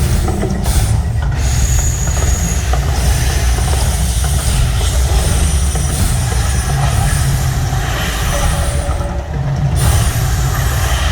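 Mirage volcano show's eruption effects: a loud, continuous low rumble with a hissing roar over it.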